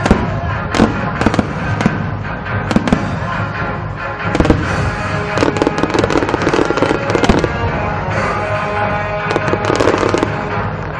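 Aerial fireworks bursting and crackling, with many sharp bangs and rapid clusters of crackles, over music playing.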